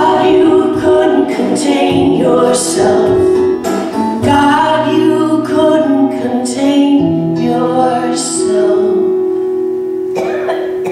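A woman singing with a strummed acoustic guitar. After about eight seconds the voice drops out and the last guitar chord rings on, slowly fading.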